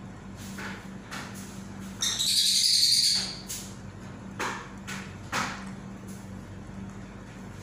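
A parrot gives one loud, harsh screech lasting about a second, about two seconds in, followed by a few short, sharp sounds.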